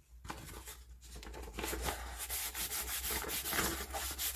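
A hand rubbing and smoothing a large sheet of thin white paper flat against a wooden tabletop, a dry, scratchy rustle that gets louder about one and a half seconds in.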